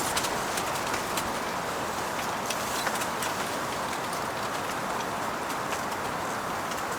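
Steady rushing of blizzard wind with snow blowing against the tent, with scattered light ticks and a sharp click at the very start.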